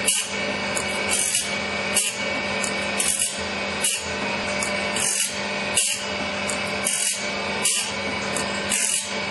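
Automatic saw-sharpening machine grinding a large sawmill band-saw blade tooth by tooth: a steady motor hum, with a short, high-pitched grind about every two-thirds of a second as the wheel dresses each tooth in turn.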